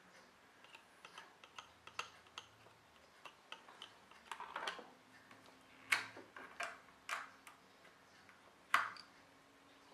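Opened laptop hard drive powered on with its platters removed: the read/write head actuator arm ticks and clicks irregularly, with a few louder clicks, one about six seconds in and one near the end, and a faint steady hum starting about halfway.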